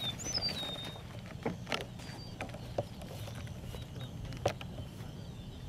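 Camera being handled during a lens change: a few scattered sharp clicks and knocks over a steady low wind rumble. A bird gives a short descending whistled call near the start.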